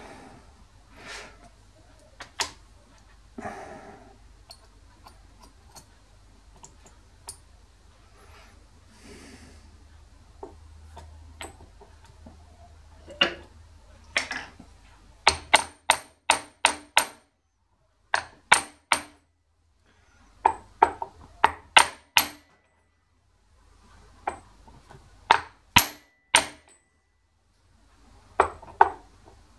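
Hammer blows on a steel drift driving tapered roller bearing cups into a heated bearing housing. In the first half there are a few quieter metal clinks; from about halfway on come sharp ringing strikes in quick runs of three to six.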